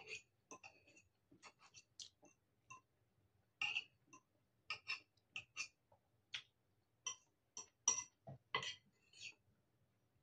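A metal fork clinking and scraping against a porcelain bowl as noodles are scooped up, making a quick, irregular run of short sharp clicks, with mouth sounds of chewing.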